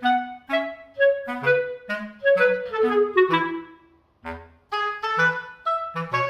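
Instrumental background music: a light melody of short, separate notes over a bass line, with a brief pause about two-thirds of the way through.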